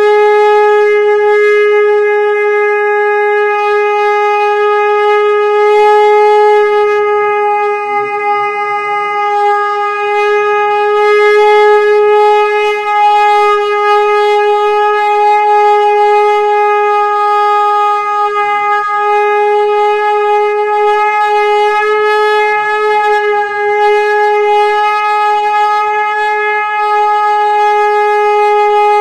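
Conch shell (shankh) blown in one long unbroken note at a steady pitch, rich in overtones.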